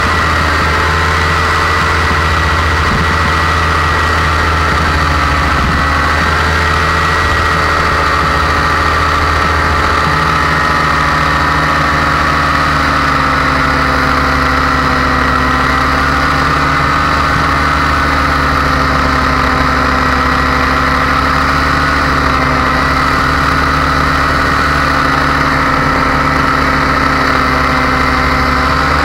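Paramotor engine and propeller running steadily in flight, loud and close, with small shifts in pitch as the throttle changes.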